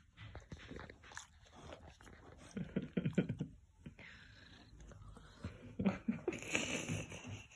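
A hand stroking and rubbing a fluffy dog's thick fur close to the microphone: irregular rustling and scratching, with louder clusters about three seconds in and again near the end.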